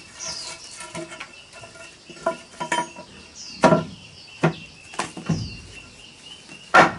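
A machete blade striking a hollow green bamboo post in a series of sharp knocks, the loudest about halfway through and just before the end. Small birds chirp in between.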